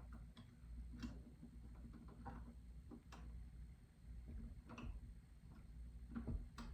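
Faint, scattered clicks and light taps of pocket door lock hardware being handled and fitted into the door, about half a dozen at irregular intervals.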